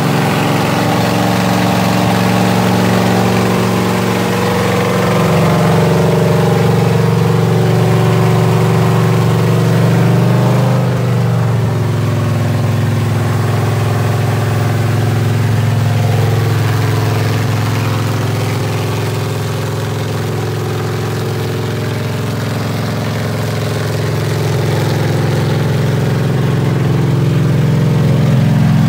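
Freshly built small-block Chevy V8 with a Lunati flat-tappet cam and headers, running loud and steady at a fast idle for camshaft break-in. Its pitch settles a little lower about ten seconds in.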